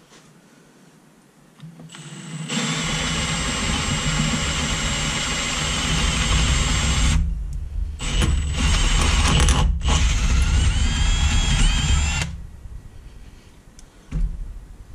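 Cordless drill with a 3/8-inch bit boring out the small discharge hole in a Sanden 709 A/C compressor head, enlarging it so air flows more freely. The drill starts about two seconds in, runs for about ten seconds with a brief stop in the middle, then cuts off. A short knock follows near the end.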